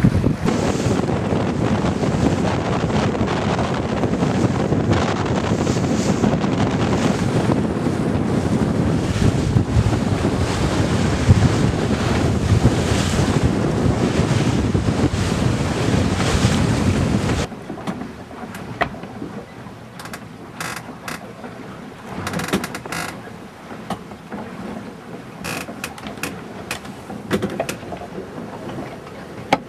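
Wind buffeting the microphone over the rush of water along the hull of a sailboat moving fast. About seventeen seconds in it drops off suddenly to a quieter rush with scattered clicks and knocks.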